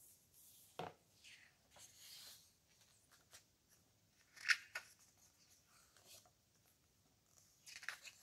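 Pages of a hardcover photobook turned by hand: soft rustles of heavy coated paper, with a sharp page snap about four and a half seconds in and another flurry of rustling near the end.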